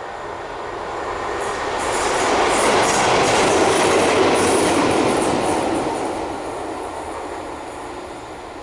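Class 33 diesel locomotive passing at speed close by: a rush of engine and wheel noise swells to a peak about three to five seconds in, with the wheels clicking over the track, then fades away as it recedes.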